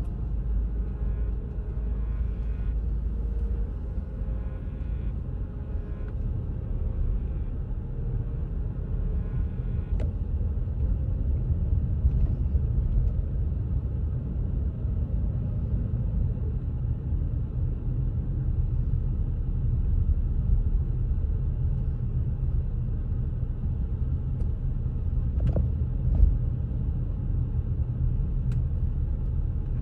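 Car driving slowly, a steady low rumble of engine and road noise heard from inside the car, with a few faint clicks.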